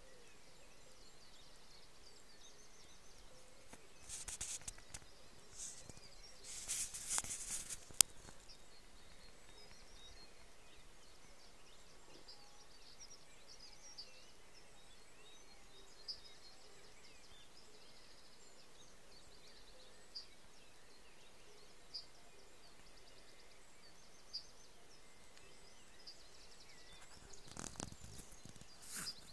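Quiet rural ambience with faint, scattered bird chirps. Brief rustling about four and seven seconds in and again near the end, with one sharp click about eight seconds in.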